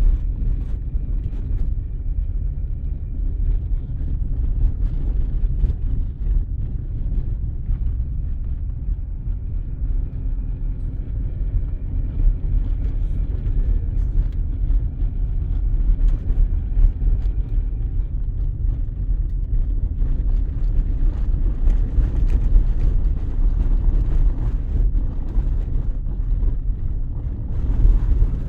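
A ZAZ-1103 Slavuta on the move: steady engine and road noise, with scattered faint knocks. The owner is trying to capture a knock from the car's left side.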